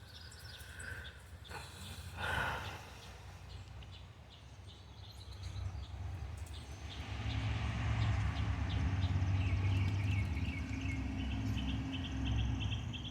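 A vehicle passing on the road: a low rumble swells from about six seconds in and fades near the end. Small birds chirp over it, with a quick run of chirps in the last few seconds.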